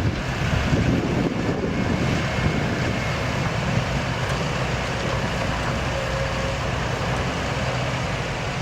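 Komatsu HB215 hybrid excavator running, a steady, even machine drone with a low hum.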